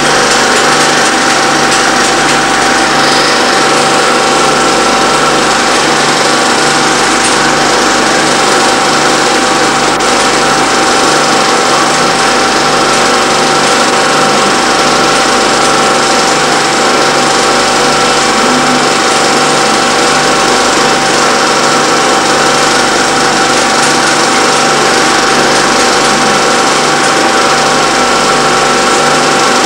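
Film projector running steadily: a constant motor whir with an even hum and a regular low pulsing from the mechanism.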